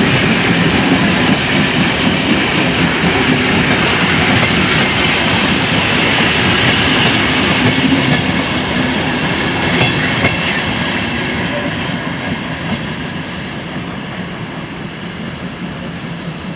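Vintage railway coaches rolling past behind a departing steam locomotive: wheels clattering over the rail joints with a thin squeal of steel wheels on rail. The noise fades from about ten seconds in as the train draws away.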